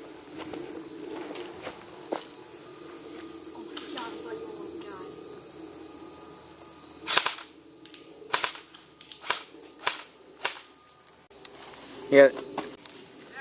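Airsoft guns firing a handful of sharp single shots, most of them from about seven seconds in, over the steady high-pitched chirring of crickets.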